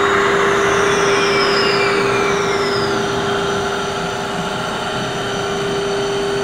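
SMTW cylindrical grinder's variable-speed workhead motor running on its AC drive, with a high whine that falls in pitch over about two seconds as the speed is turned down. Under it a steady hum carries on at constant pitch.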